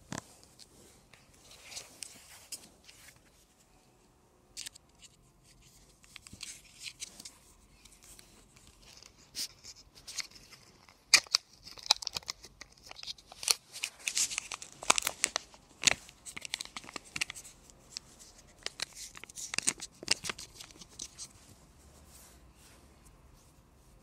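Hands handling a Kinder Joy egg's plastic and wrapper: scattered crinkles and sharp little clicks, busiest in the middle and dying away near the end.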